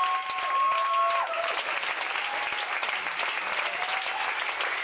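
Theatre audience applauding steadily, with a few long held cheers from the crowd in the first second and a half.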